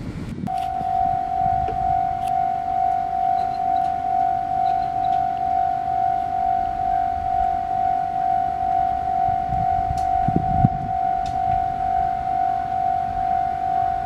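Japanese level crossing's electronic warning bell ringing, a steady high tone pulsing about twice a second, starting about half a second in.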